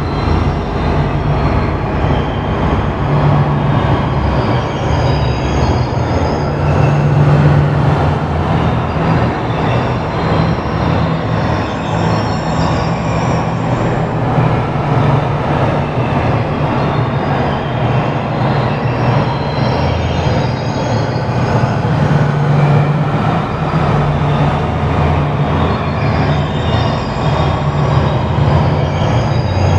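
Synthesized ambient sound effect: a dense, steady rumbling noise with a low hum underneath and faint high tones above, like a train running.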